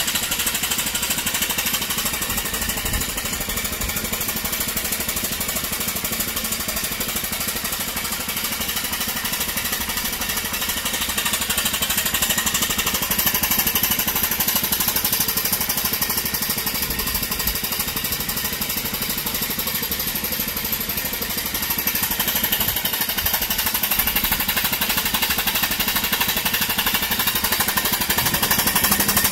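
Model steam locomotive chassis running fast on compressed air fed through a hose: a rapid, steady machine-gun-like clatter of cylinder exhaust beats and moving rods, with strong air hiss. It grows somewhat louder about halfway through and again near the end.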